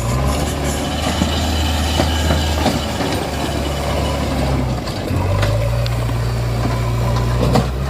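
A low, steady engine-like drone with scattered light clicks; its pitch shifts about five seconds in.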